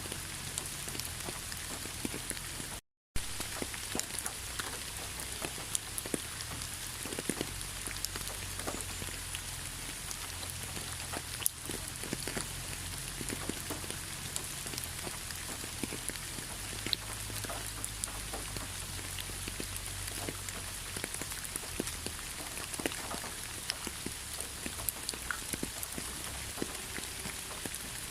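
Steady rain falling, with individual drops ticking sharply on a surface. The sound cuts out completely for a split second about three seconds in.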